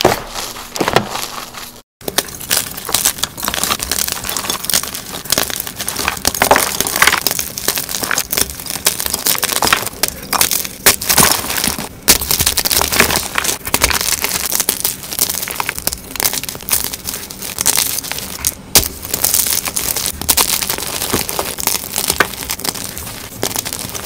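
Hands crushing and crumbling blocks of gym chalk: a dense, irregular run of dry crunches and crackles. It cuts out for a moment about two seconds in, then carries on.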